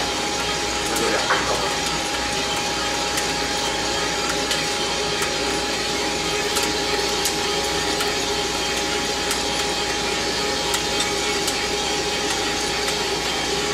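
Feima Pro 1K drum coffee roaster running mid-roast: a steady whoosh from its fan and burner with a constant hum, and beans tumbling in the turning drum. Faint sharp clicks come through here and there.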